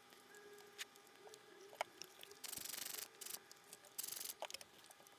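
Small parts and tools being handled during reassembly of a projector: a few sharp light clicks, with two short bursts of rapid, even ratchet-like clicking in the middle and near the end.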